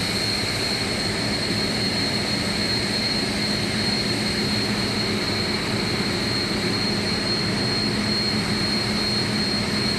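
Steady drone of running industrial machinery: a constant high whine and a lower hum over a broad rush of noise, unchanging throughout.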